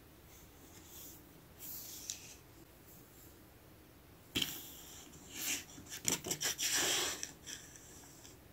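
Small plastic toy pieces being handled and set down on a hard tabletop: a faint rustle about two seconds in, a sharp tap about four and a half seconds in, then a run of clicks and rustling over the next few seconds.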